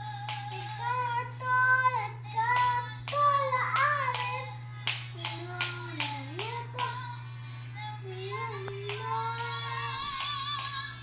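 A young child singing a wavering melody, with a run of sharp hand claps that is densest in the first seven seconds or so, over a steady low hum.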